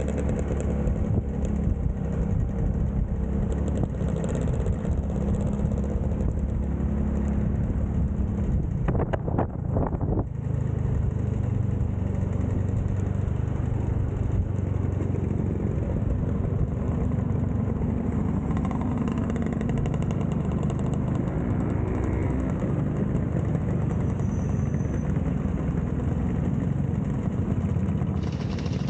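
A group of vintage two-stroke scooters, Vespas and Lambrettas, riding past in a convoy with their engines running steadily. The engine sound changes abruptly about ten seconds in.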